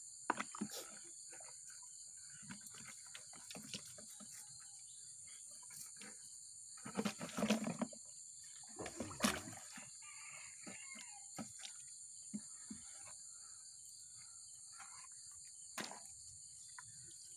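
Water and fish splashing and knocking in a plastic bucket as a mesh fish trap is shaken out into it, loudest in two clusters about seven and nine seconds in. Underneath, a steady high-pitched chorus of insects.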